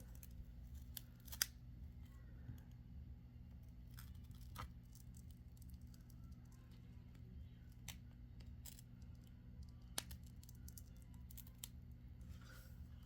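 Faint scraping and scattered sharp clicks of a prying tool slicing through the adhesive under a Samsung Galaxy S20+'s cracked back glass, over a low steady hum. The loudest click comes about a second and a half in.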